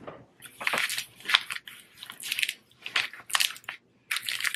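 Clear plastic wrapping crinkling in a series of short bursts as a GoPro chest harness, its mount still wrapped, is handled and adjusted against the body.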